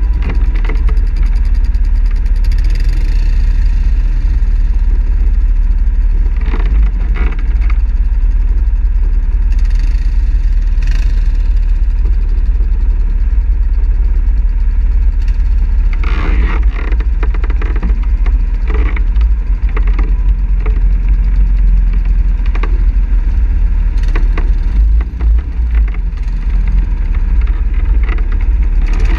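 ATV engine running steadily as the quad rides a rough dirt trail, with a constant low rumble and several brief knocks and clatters from bumps along the way.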